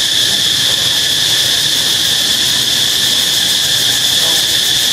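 Loud, steady, high-pitched drone of forest insects, unchanging in pitch and level.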